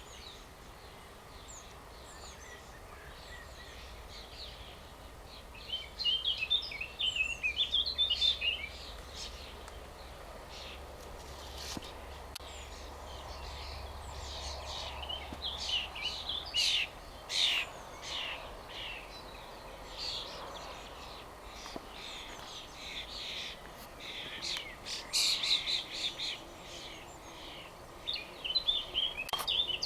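Songbirds singing in bursts of quick, high twittering chirps and trills, over a faint low rumble of background noise.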